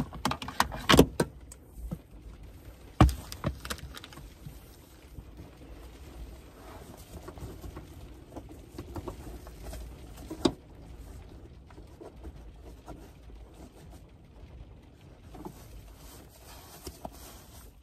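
Handling sounds as a blanket is tucked and smoothed over plastic storage drawers: fabric rustling, with several knocks and thumps in the first few seconds and another about ten seconds in, over a faint steady low rumble.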